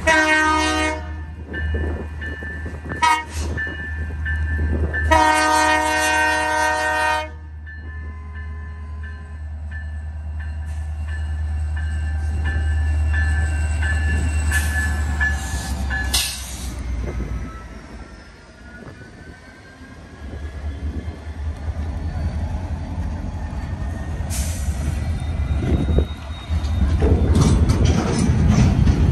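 Union Pacific diesel freight locomotive sounding its multi-chime air horn: a blast, a brief toot, then a longer blast of about two seconds. The diesel engine's steady low rumble follows as the locomotive passes, with faint sliding wheel squeals. Near the end come the louder rumble and clatter of freight cars rolling by.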